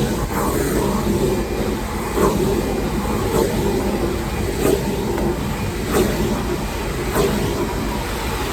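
Shop vacuum running steadily, with a short sharp scrape or knock about once a second as the nozzle is worked back and forth.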